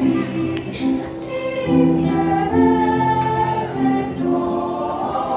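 Children's church choir singing in parts, holding notes that move together every second or so.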